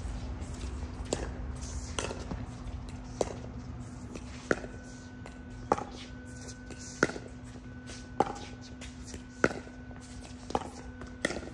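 Pickleball rally: paddles striking the hollow plastic ball in a steady back-and-forth, a sharp pop about once a second, each with a brief ringing tone, the pops getting louder about four seconds in. A steady low hum runs underneath.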